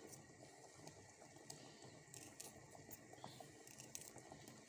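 Faint, irregular clicks of a knife cutting garlic cloves, over quiet room tone.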